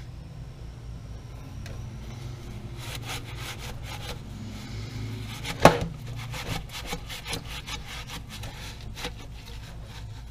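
Repeated hand scrubbing or scraping strokes working grime off machine parts, with one sharp knock about halfway through and a steady low hum beneath.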